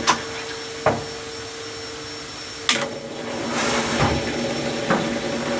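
Washing machine lid opened and shut with sharp clicks from the lid and its safety switch. The drain pump's hum stops after the first click and starts again after a loud click near the middle, followed by a few softer knocks. The pump keeps cutting out and jamming, which the technician puts down to play in its rotor.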